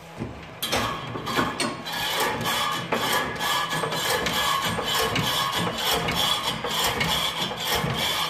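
Fast, repeated scraping and clicking while a 1966 Mustang's front wheel is raised through its suspension travel on the Cavalier steering-rack conversion.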